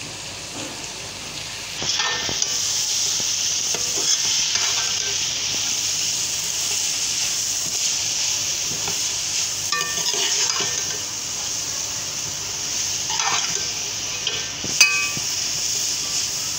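Chicken and vegetable spring-roll filling sizzling in a metal pot while a metal spoon stirs it, scraping against the pot. The sizzle grows louder about two seconds in, and a sharp clink of spoon on pot comes near the end.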